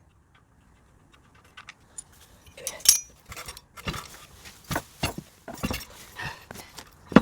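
Hand work on engine parts: irregular metal clicks, clinks and knocks as a part is pulled apart, with one sharp ringing clink about three seconds in.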